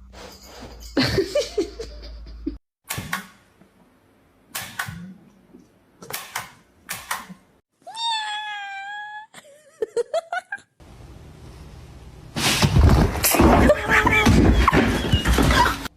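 Domestic cat sounds from a run of short clips cut together: brief knocks and scuffs, one clear drawn-out meow about eight seconds in, and a loud, rough, noisy stretch over the last few seconds.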